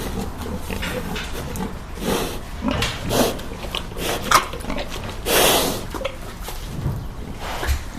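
Pig grunting in short, irregular calls, with one longer, louder call about two-thirds of the way through.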